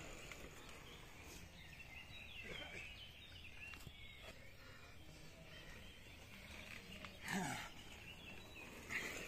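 Faint birdsong in woodland, with a brief voice calling out about seven seconds in.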